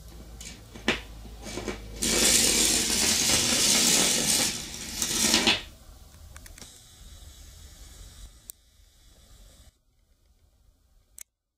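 Battery-and-magnet 'electric train' (an AA battery with disc magnets on both ends) driven through a coil of bare copper wire, rattling and scraping loudly against the copper turns for about three and a half seconds. A few sharp clicks come first as it is pushed into the coil, and lighter clicks follow as it comes out and stops.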